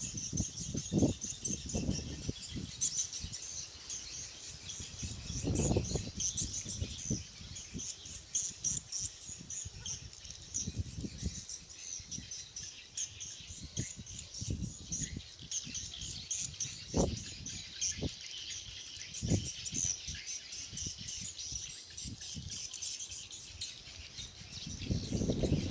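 A large flock of swiftlets twittering, a dense stream of rapid high chirps. Occasional low thuds and rumbles sound underneath.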